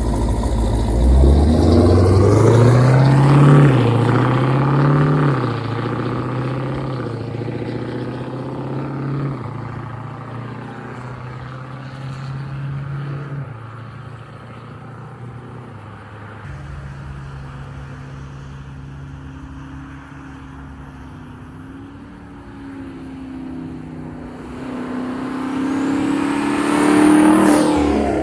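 Twin-turbocharged 5.7-litre Hemi V8 of a Dodge Charger revving up hard, then running more quietly at fairly steady revs, then accelerating again near the end with a high whistle rising along with the engine before it drops off suddenly.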